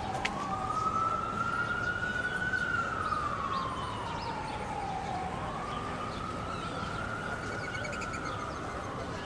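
Emergency vehicle siren in a slow wail, rising and falling in pitch about every five seconds, over a steady haze of city background noise.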